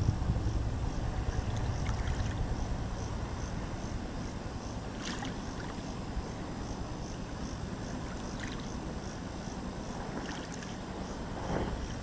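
Small waves lapping against the stones of a pebbly riverbank, over a steady low rumble, with a few faint splashes along the way.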